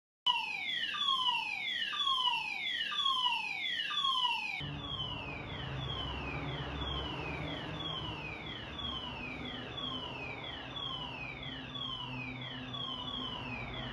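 Fire alarm sounding: a tone that falls in pitch again and again in quick succession. About four and a half seconds in it becomes fainter, with a low rumble underneath.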